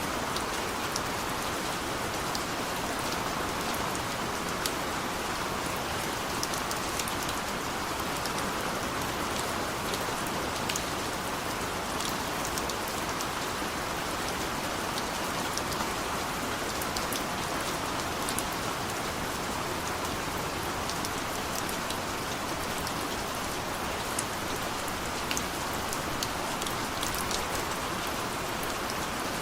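Heavy rain falling steadily, a constant hiss with scattered sharp ticks of individual drops striking a surface.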